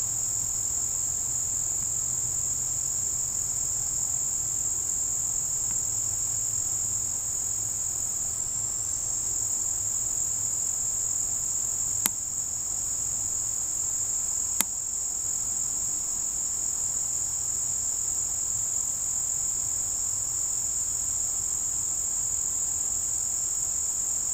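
A steady, high-pitched insect chorus trilling without a break. About halfway through come two sharp clicks, two and a half seconds apart.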